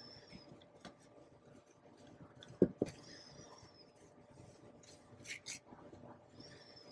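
Paper towel rubbing and scraping over opened Pacific oyster shells, faint, with two sharp knocks close together a little under three seconds in as shells are moved on the counter.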